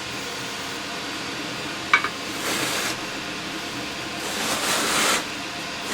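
Work noises on an antique cash register being taken apart: a single sharp click about two seconds in and two short scraping hisses, over a steady room hum.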